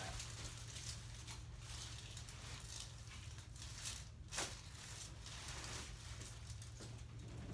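Faint rustling and handling sounds over a steady low hum, with one short sharp click a little past four seconds in.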